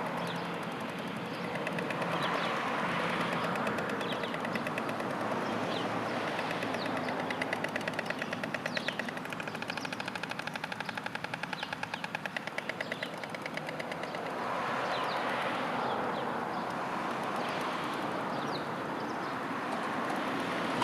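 White storks clattering their bills, a fast rattle that runs through most of the stretch, over the rush of passing road traffic. It is the pair's greeting display at the nest.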